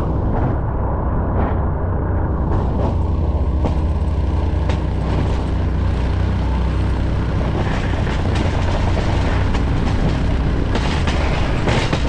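Plow truck running steadily while pushing snow, heard from inside the cab: a deep, even engine rumble with a rushing, scraping noise over it that grows fuller in the second half.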